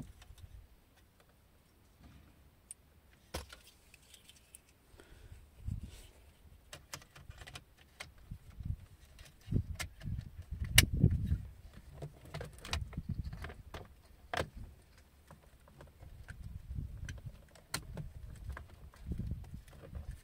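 Hand handling noise from plastic car-interior parts: scattered small clicks and rattles of wiring connectors and a plastic centre-console switch panel, with dull knocks as the panel is pressed against the console trim, and one sharp click about eleven seconds in.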